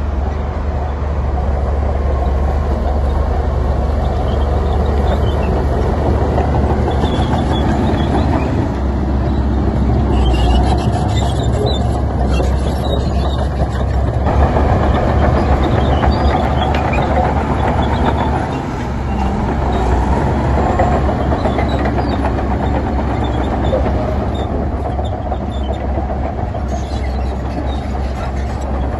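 Heavy diesel construction machinery running and working steadily, with a strong low engine rumble and a clattering haze over it, dipping briefly about two-thirds of the way through.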